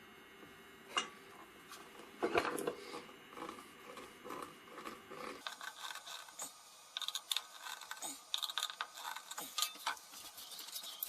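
Small objects handled on a workbench: a sharp knock about a second in, scraping and rubbing, then a run of quick clicks and ticks.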